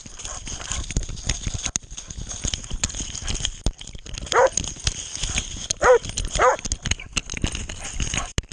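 Dog barking three times, one bark about halfway through and two quick ones a second and a half later, over constant knocking and rustling from the dog-worn camera jostling as the hunting dog moves.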